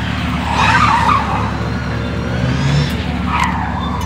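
Car tyres squealing and skidding on tarmac in two bursts, about half a second in and again near the end, the second falling in pitch, over the steady sound of the car's engine running.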